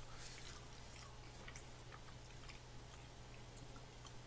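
Faint chewing with a few small, scattered mouth clicks, over a steady low electrical hum.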